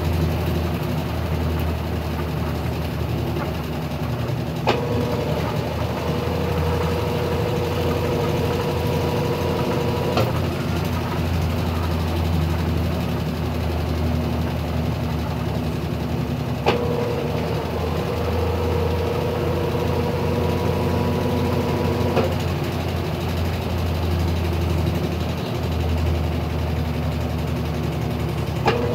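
Brastemp BWT12 top-loading washing machine in its spin cycle: a steady motor hum as the basket spins. Twice, a higher whine sets in with a click and stops with a click some five seconds later, and it starts again near the end.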